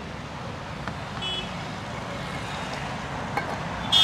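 Steady street traffic noise, with a brief high beep about a second in. Near the end comes a sharp metallic clink from the steel utensils on the cart.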